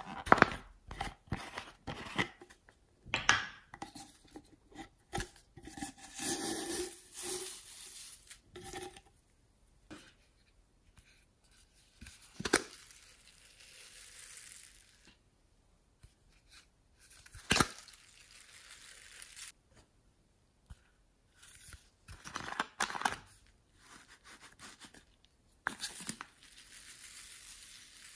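Foam beads poured from a plastic bottle into a glass dish of slime, heard as spells of dry, steady hiss, between sharp clicks and crinkles from plastic containers being handled.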